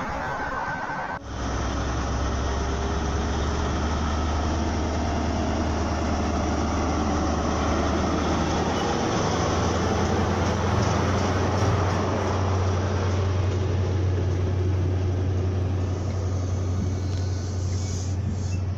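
Class 43 High Speed Train diesel power car running as the train moves past: a deep, steady engine drone that steps up in pitch about nine seconds in, over the rumble of the coaches rolling by. It starts abruptly about a second in, after a brief moment of open-air noise.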